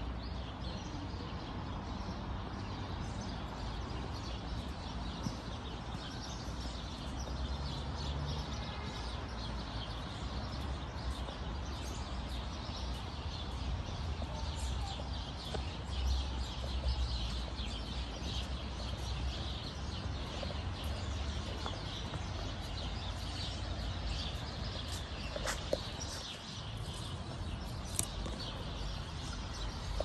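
Small birds chirping repeatedly over a steady low background rumble, the chirping thickening after the first several seconds, with a couple of sharp clicks near the end.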